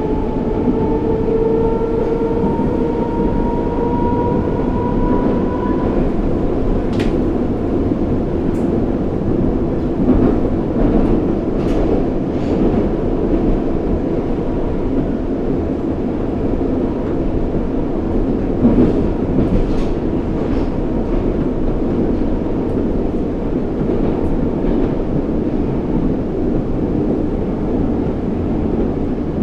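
Inside a moving 81-740/741 'Rusich' metro train: the traction drive whines with two tones rising in pitch for the first six seconds or so as the train speeds up. Then the steady rumble of running follows, with scattered clicks of wheels over rail joints.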